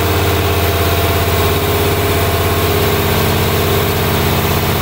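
1995 GMC Suburban's 5.7 L TBI V8 running steadily with the passenger-side valve cover off, a fast light clacking from the exposed rocker arms mixed in. This is the faint valvetrain tick the owner is hunting for, which he suspects comes from a rocker arm.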